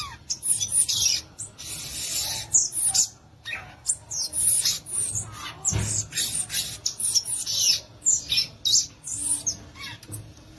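Violaceous euphonia (gaturamo-verdadeiro) singing a rapid, varied string of high chips, squeaks and twitters with hardly a pause. One dull low thump falls near the middle.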